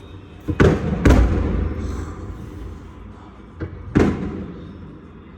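Fireworks exploding: a quick pair of bangs about half a second in, another about a second in, then two more near four seconds. Each bang is followed by a rumbling echo that dies away.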